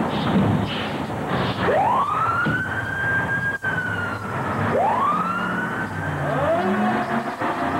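Fire truck sirens starting up as the trucks leave the fire hall: three wails, each rising quickly and then slowly sinking, overlapping one another, over the rumble of the trucks' engines.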